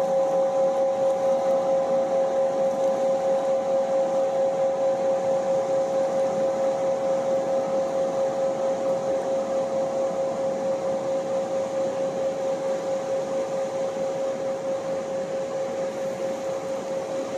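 Singing bowl ringing on one steady tone with a few higher overtones. The tone wobbles a few times a second and slowly fades, over the steady rush of a mountain river.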